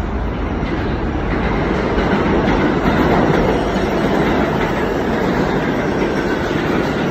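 Subway train running on the rails, a loud steady rumble of wheels and cars that swells a little a few seconds in.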